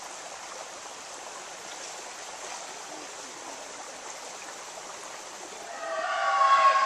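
Steady rushing of a small forest stream. About six seconds in, loud drawn-out shouting voices break in over it.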